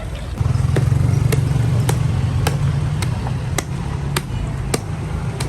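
Low steady rumble of a running engine that swells about half a second in, with sharp knocks repeating evenly a little under twice a second.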